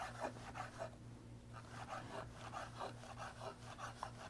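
Chef's knife dicing portobello mushroom strips on a wooden cutting board: a quiet run of quick chops on the board, with a short pause about a second in.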